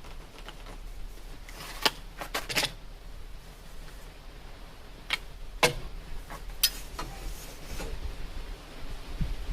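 A handful of sharp, separate knocks and clicks, such as objects being handled or set down, over a low steady hum; the loudest come about two seconds in and between five and seven seconds in.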